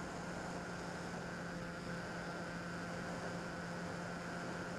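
Steady hum of a Bixler 2 RC plane's electric motor and propeller, heard from a camera on the plane's nose, over a constant rush of airflow hiss.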